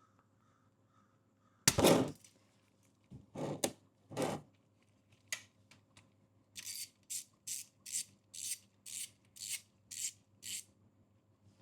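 Ratchet with a 10 mm hex bit working the oil drain plug loose on a motorcycle oil pan. There is a loud knock-and-scrape about two seconds in and two shorter scrapes after it, then a run of about nine even rasping ratchet strokes, roughly two a second.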